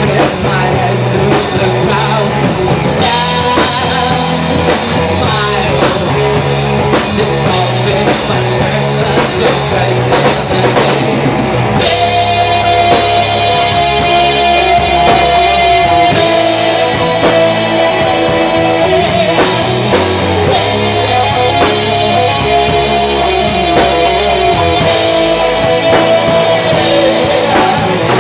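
Rock band playing live: guitars, bass and drum kit, with a woman singing. About twelve seconds in the band moves into a new section, and her long held notes ride above it.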